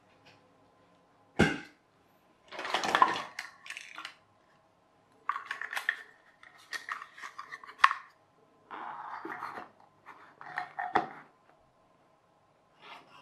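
Irregular knocks, clatter and scraping from handling a cardboard-box toy car and a small wooden block on a tabletop. A sharp knock comes about one and a half seconds in, followed by several spells of scraping and rustling.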